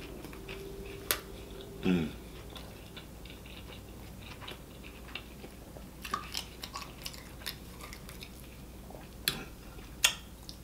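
Close-miked chewing of a mouthful of triple bacon burger: soft wet smacks and small mouth clicks, busiest a little past the middle. A held, closed-mouth 'mm' from the eater in the first two seconds falls away.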